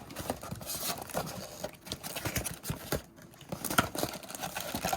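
Cardboard trading-card box and the wrapped packs inside it being handled: irregular rustling, crinkling and light taps.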